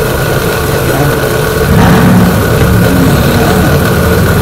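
Countertop blender motor running, blending a jar full of chopped peppers, onions, cilantro and garlic into sofrito, getting louder about two seconds in. It is an old blender that the owner fears is about to give out.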